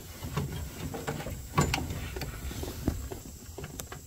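Handling noise: irregular light knocks, taps and rubbing with a low rumble as the camera is moved about inside the boiler casing. The two loudest knocks come about a second and a half in and again near three seconds.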